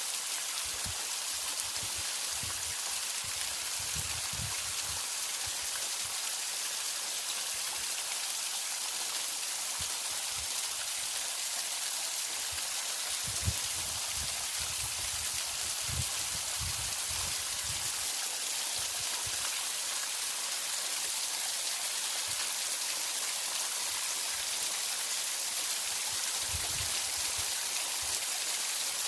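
Steady hiss of water running at a partly frozen waterfall, with scattered soft low thumps now and then.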